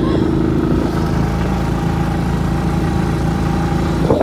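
Motorcycle engine running at a steady pace while riding, heard from the rider's seat; its note breaks and dips briefly near the end.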